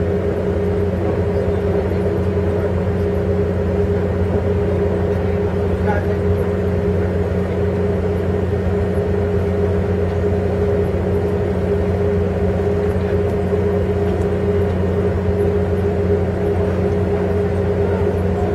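Steady rumble and hum of an Amtrak passenger car running at speed, heard from inside the car, while a container freight train passes alongside on the next track.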